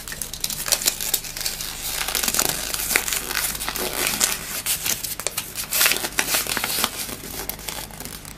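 Foil wrapper on a chocolate surprise egg crinkling and crackling as it is unwrapped by hand, in a dense run of small crackles that stops abruptly near the end.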